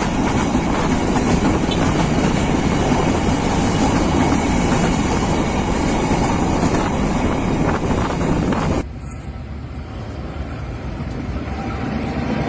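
Freight train wagons rolling past, their wheels clicking over the rail joints amid a dense rumble. About nine seconds in the sound drops suddenly to a quieter rumble that slowly grows louder again.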